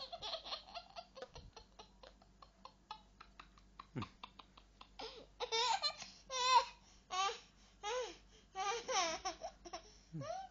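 Baby laughing: quiet, quick breathy laughter at first, then louder high-pitched bursts of laughter from about five seconds in.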